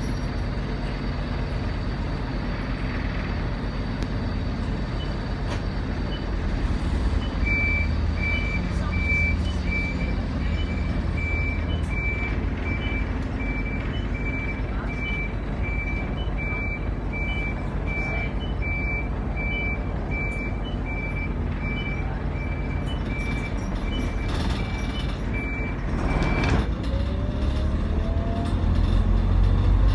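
Optare Solo single-decker bus with its diesel engine running and its reversing alarm giving a regular series of short beeps for about eighteen seconds as it backs off the stand. The beeping stops, a short burst of noise follows, and the engine note rises as the bus pulls away.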